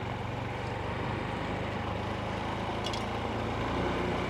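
Honda CT125's single-cylinder four-stroke engine running steadily on the move, with an even rush of wind and road noise over it.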